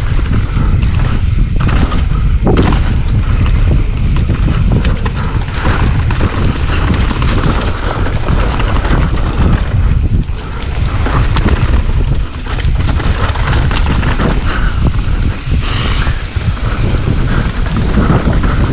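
Heavy wind noise on a GoPro microphone during a fast mountain-bike run, over a constant rush of tyres on a dirt trail, with frequent short knocks and rattles as the bike takes bumps.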